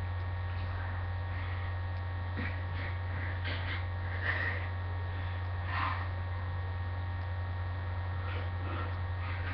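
A steady low electrical hum, with a few faint soft noises over it.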